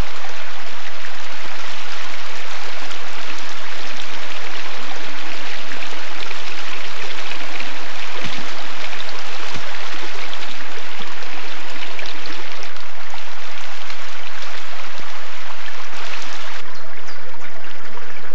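Small stream running over stones: a steady rush and babble of water, its hiss dropping somewhat near the end.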